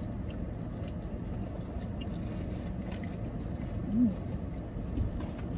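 Faint eating and food-wrapper handling: small clicks and paper rustles over a steady low rumble in a car's cabin, with a short hummed "mm" about four seconds in.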